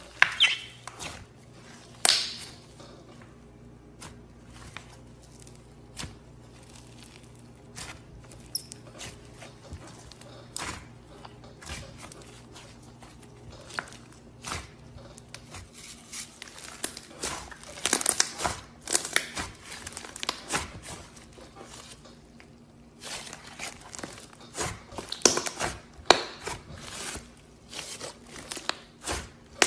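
Slime being pressed and worked by hand, giving irregular sticky clicks and crackles that come thicker about halfway through and again near the end.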